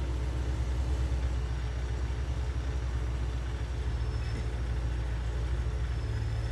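ProCharger-supercharged Dodge Charger SRT HEMI V8 idling steadily in gear while the car creeps along at walking pace, heard from inside the cabin as an even, rapidly pulsing low rumble.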